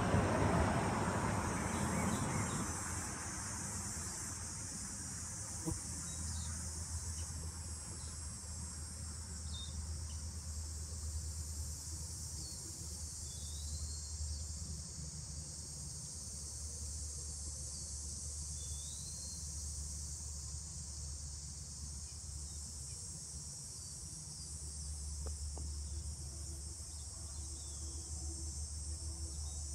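Steady high-pitched insect chorus, such as crickets, over a low steady hum, with a few short chirps scattered through it.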